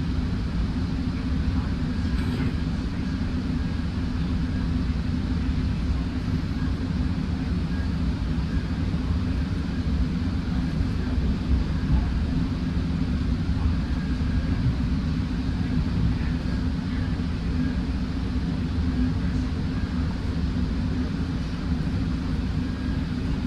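Steady low rumble inside a moving Metrolink passenger car as the train runs along the track, with no distinct events standing out.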